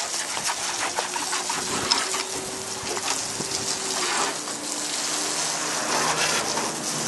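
Hand car wash: a wet sponge sloshing and scrubbing over the paintwork with water splashing and dripping, many small wet clicks, over a steady low hum that drops slightly in pitch about four seconds in.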